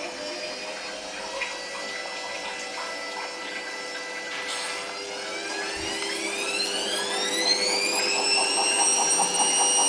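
Indesit WIE127 washing machine running with a steady machine hum. About halfway through, its motor whine rises in pitch and grows louder, then levels off, like the drum speeding up.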